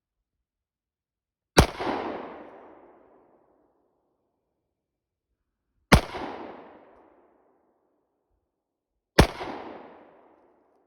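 Three shots from a Kimber 1911 .45 ACP pistol, a few seconds apart, each a sharp crack followed by an echo dying away over about a second and a half.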